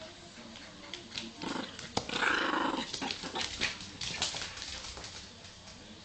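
A dog growling while it attacks a snake, with scuffling clicks throughout; the loudest growl comes about two seconds in.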